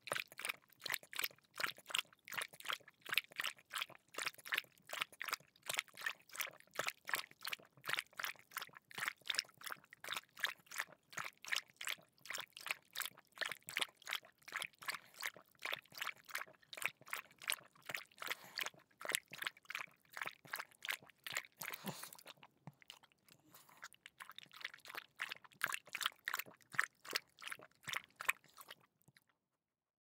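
A pug lapping water with its tongue: a quick, even run of wet laps, about three or four a second. There is a short lull a little past the middle, and the lapping stops shortly before the end.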